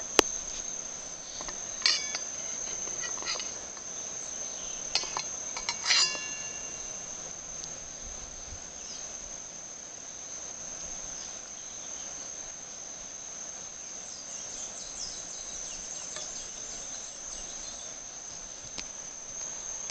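A steady high-pitched insect drone throughout, with a few sharp metallic clinks in the first six seconds, the loudest ringing briefly: a spoon knocking against a stainless steel bowl.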